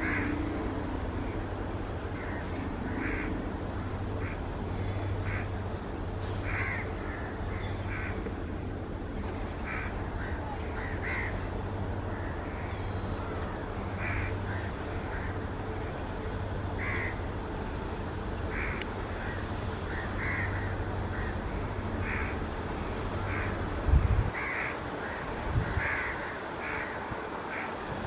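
Crows cawing repeatedly, roughly one caw a second, over a steady low hum. A sudden low thump about 24 seconds in is the loudest sound.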